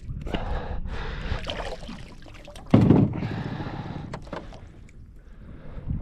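Wind buffeting the microphone in gusts, with a louder thump about three seconds in.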